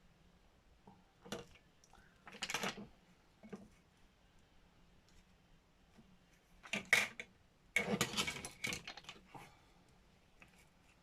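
Irregular small clatters, clicks and rustles of craft tools and paper being handled on a work table, in several short bursts with the busiest stretch past the middle.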